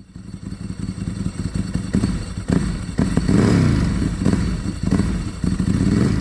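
Kawasaki ZXR750 H1's inline-four motorcycle engine running and being revved, its pitch rising and falling several times.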